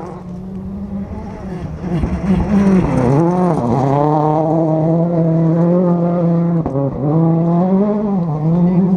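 Rally car's engine at high revs on a gravel stage, growing louder over the first two seconds or so as it approaches, then dropping briefly several times as the driver lifts or changes gear through the bend.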